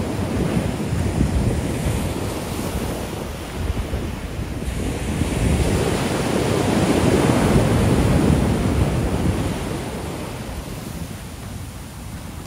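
Ocean shore break: waves breaking and washing up the beach in a continuous rushing surf, swelling loudest a little past halfway and then easing off.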